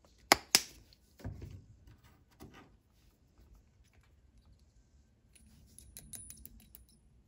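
Two sharp plastic clicks near the start as the flip cap of a thinner bottle is snapped shut, a few soft knocks as it is set down, then about five seconds in a quick run of light ticks as a thin stick stirs thinned paint in the airbrush's small metal colour cup.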